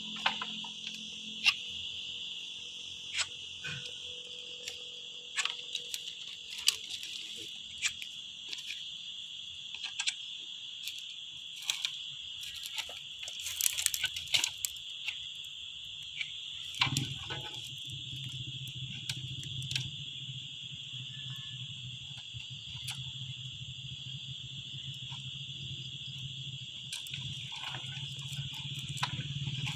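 Steady high-pitched insect chorus, with dry twigs and branches snapping and crackling irregularly under footsteps in logging debris, thickest a little before halfway. A low steady hum comes in just past halfway.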